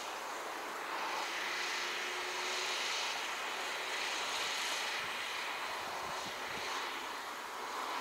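A distant engine's steady rushing drone that swells from about a second in and slowly eases off again.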